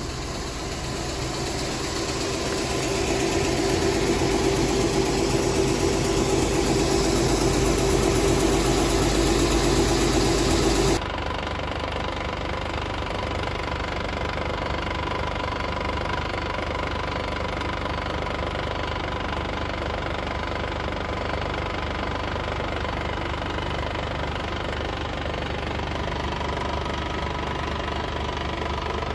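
Engine or machinery running with a steady hum that grows louder over the first several seconds. About eleven seconds in it cuts abruptly to a quieter, even engine-like idle that continues unchanged.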